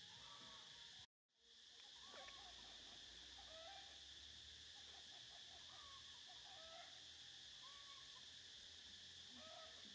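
Faint outdoor background: a steady high insect drone with scattered short bird chirps. The sound cuts out completely for a moment about a second in.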